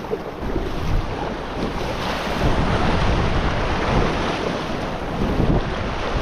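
Rushing river water in a small riffle, splashing against an inflatable kayak's hull, with wind buffeting the microphone; it grows louder within the first second.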